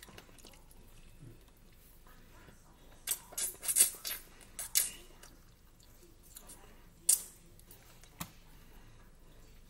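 Close-up mouth sounds of someone eating stewed chicken feet by hand: a cluster of wet, crisp slurping and smacking noises about three to five seconds in, then two short sharp clicks later on.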